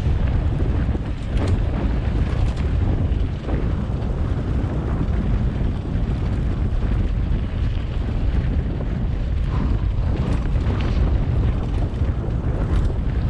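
Wind rushing over the camera microphone and the mountain bike's tyres rumbling on a sandy dirt trail at speed, a steady low roar with a few brief knocks and rattles from bumps.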